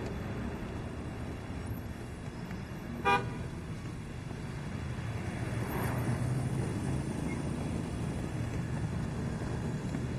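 A vehicle horn gives one short toot about three seconds in, over a steady low street rumble.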